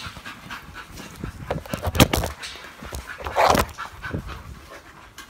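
A dog breathing and panting close by, with scattered clicks and knocks. There is one sharp knock about two seconds in and a short breathy burst about a second and a half later.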